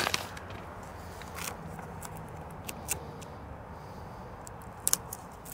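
Light scattered clicks and rustles of a vinyl sticker being handled and pressed onto a dump trailer's side, over a faint steady low hum, with two sharper clicks near the end.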